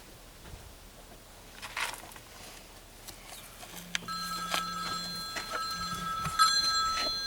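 An electronic ringing tone, like a phone ringtone, starts about four seconds in and holds steady. Scattered clicks and knocks of handling sound under it.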